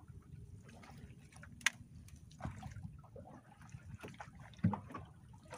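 Water lapping against a small boat's hull, with a sharp tap about a second and a half in and two dull knocks on the boat near the end.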